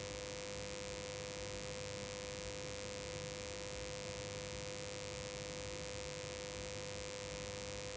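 Home IPS inverter humming steadily while charging its battery: one clear steady tone with fainter higher tones and a light hiss.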